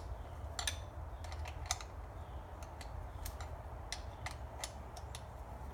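Ratchet clicking in short, irregular strokes while a bolt on a small-block Chevy 350's thermostat housing is turned, over a steady low hum.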